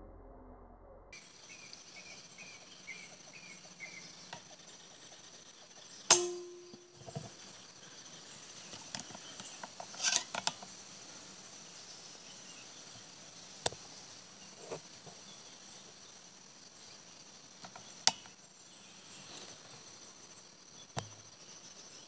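Steady high-pitched insect drone from the tree canopy, broken about six seconds in by a sharp, loud air-rifle shot with a brief ring, then a few quicker sharp clicks around ten seconds and single fainter clicks later.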